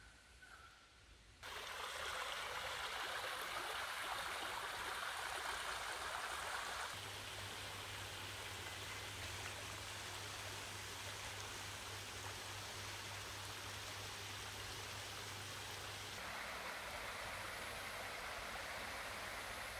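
Steady rush of flowing water from rain-swollen garden creeks and a lake fountain, in separate takes that change abruptly about a second and a half in, about seven seconds in and about sixteen seconds in. A low steady hum runs under the middle take.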